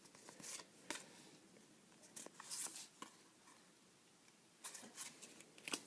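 Faint, scattered rustles and light taps of Pokémon trading cards being handled, in otherwise near silence.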